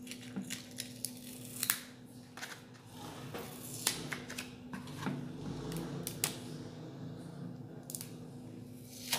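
Thin plastic stencil sheet being peeled off a vase coated in modeling paste: scattered light crackles and ticks of handled plastic, coming irregularly.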